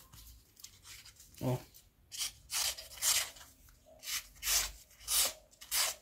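Hand file stroked along the small blade of a Victorinox Huntsman pocket knife, reshaping and sharpening the worn edge. About eight short scraping strokes come in a row, starting about two seconds in, with a brief scrape shortly before them.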